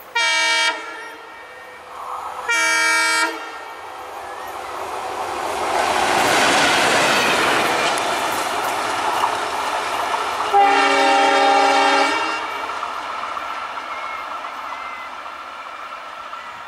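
Indian Railways diesel locomotive running light: two short blasts of its multi-tone horn, then the engine and wheels on the rails growing loud as it passes, then a third, longer horn blast about eleven seconds in before the sound fades.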